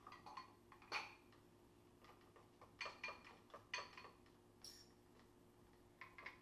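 Faint scattered clicks and light metal scrapes as the air cylinder is screwed back onto a Steyr Hunting 5 Automatic PCP air rifle, over a low steady room hum.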